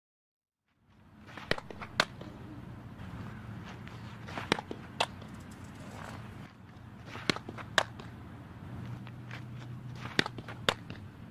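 Softball pitches being thrown and caught, starting about a second in: four pairs of sharp pops about half a second apart, a pair every three seconds or so, the second pop being the ball smacking into the catcher's mitt. A steady low hum runs underneath.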